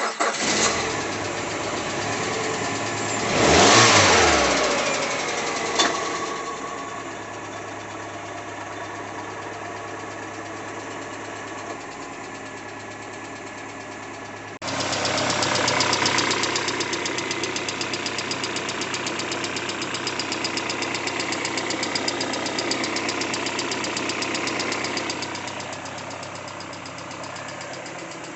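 Peugeot 406 Coupé engine running with a knock that appeared after a timing-belt replacement. It is revved once, briefly, about four seconds in. After a cut about halfway through, it runs steadily with a fast, even knocking.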